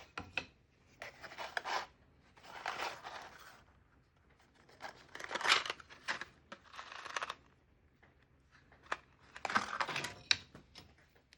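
A hand tool cutting wood in short scraping strokes, about six strokes each lasting roughly a second, with sharp clicks between them.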